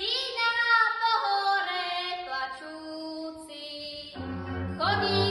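A girl singing a folk song solo and unaccompanied. About four seconds in, the folk band comes in under her with a low bass line.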